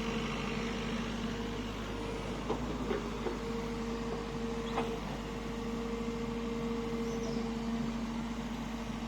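SANY SY55C mini excavator's diesel engine running steadily with a constant drone while it works. A few short knocks come in the middle.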